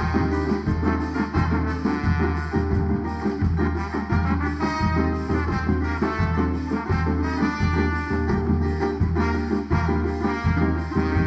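A live band plays the instrumental introduction of a bumba-meu-boi song in the zabumba accent: a steady drum beat with a melody over it, and no singing yet.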